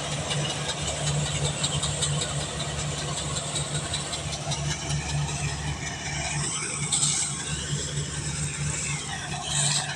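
Kubota rice combine harvester's engine running steadily with a continuous low hum, under a constant mechanical wash of noise.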